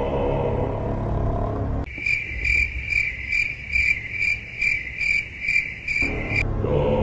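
Low droning background music, cut off about two seconds in by a cricket chirping steadily, about two and a half chirps a second, for some four seconds; then the drone returns.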